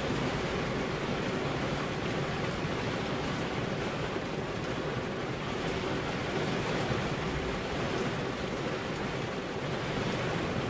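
Rain falling steadily, an even hiss without a break.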